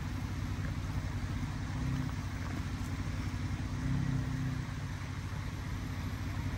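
Jeep Gladiator's 3.6-litre V6 running at low revs during slow rock crawling, with two brief rises in throttle about two and four seconds in.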